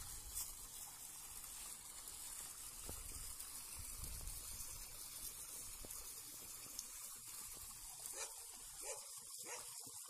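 Faint, steady hiss of running water at a trout pond, with a low rumble that fades out about six seconds in.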